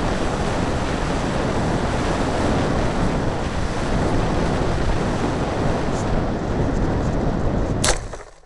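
Loud, steady rush of air buffeting an RC hotliner's onboard camera microphone as the model flies fast and low, with no motor tone heard. Near the end comes a single sharp crack as the model hits the grass, and the rushing stops.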